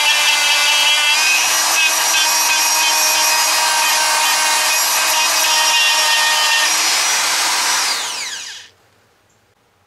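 Dremel rotary tool with a small sanding drum running at high speed and sanding the inside of a stainless steel muzzle brake port: a steady high whine with grinding, taking the machining marks off the metal. About eight seconds in it is switched off and the whine falls away as it spins down.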